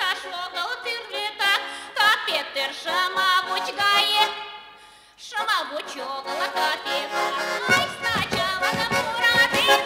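Woman singing a Mari wedding chastushka in a folk voice to accordion accompaniment. About halfway through the singing stops with a brief dip in loudness, then the accordion plays on alone, its bass chords coming in later.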